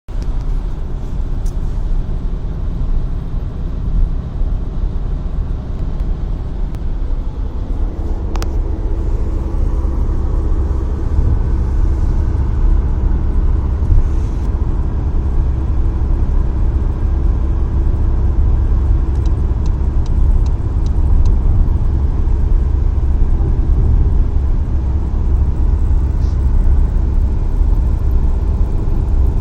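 Skoda Octavia III running, with a steady engine and road rumble heard inside the car and a rattle from the accelerator pedal area at about 2000 rpm. A single sharp click comes about eight seconds in.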